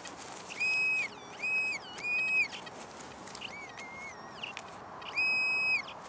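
Metal-detecting pinpointer sounding a series of steady high electronic beeps, each about half a second long, with one lower wavering tone between them, as the probe is moved through the loose soil in the dig hole: it is picking up a buried metal target.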